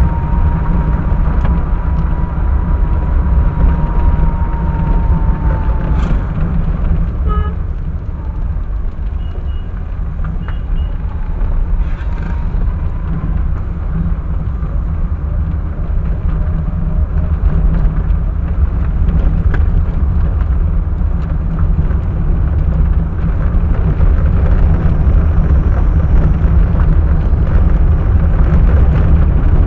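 Vehicle driving, picked up by a dashcam: a steady low rumble of engine and road noise throughout. A steady high tone sounds through the first six seconds and then stops.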